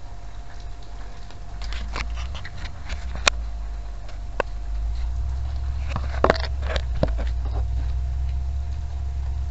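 Handling noise as the padded kneeboard is lifted off a knee scooter's frame: a few sharp clicks and knocks, the loudest about six seconds in, over a steady low rumble.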